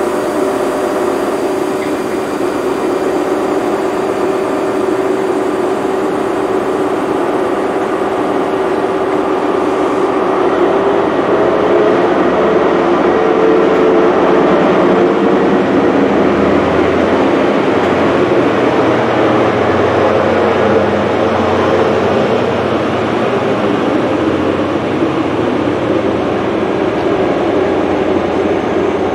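Diesel engines of an InterCity 125 (HST) Class 43 power car working as the train pulls away from a standstill. The engine note is steady at first, then rises in pitch and grows louder about eleven seconds in as the power is opened up.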